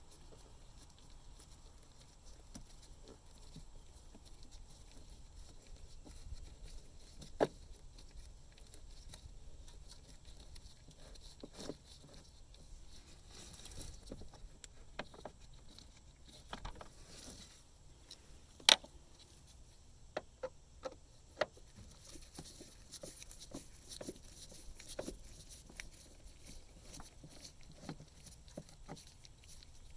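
Scattered clicks and light knocks from a T20 Torx driver and hands working the screws out of the air cleaner housing lid on a 2006 GMC 2500 6.0 L, coming at irregular moments. The sharpest click falls about two-thirds of the way through, with a quick run of smaller clicks after it.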